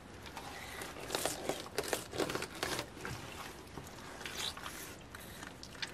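Knife cutting through a pike's flesh while it is being filleted boneless: faint, irregular short cutting and handling sounds, with a few small clicks.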